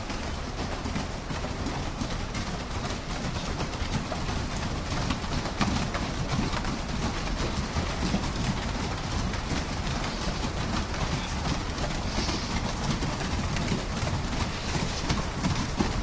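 A group of people running barefoot laps on padded gym mats: many overlapping footfalls and soft thuds over a low rumble.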